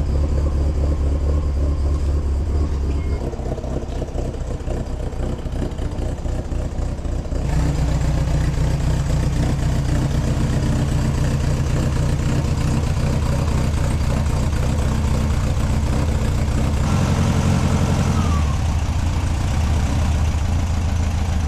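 Air-cooled VW 1600 dual-port flat-four engine of a 1971 Karman Ghia running steadily through its custom exhaust, with a few sudden shifts in tone.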